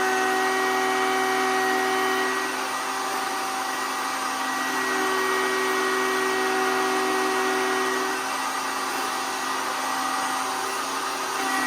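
Router with a dovetail bit running at speed, a steady high whine with noise over it. Twice, about three seconds in and again from about eight to eleven seconds, the whine sags and the level drops a little as the bit cuts into the wood under load.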